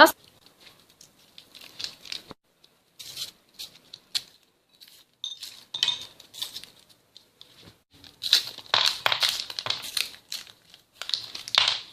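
Packaging of Tofita chewy candies crinkling and tearing as it is torn open and the candies emptied out, in irregular rustling bursts with a few sharp crackles.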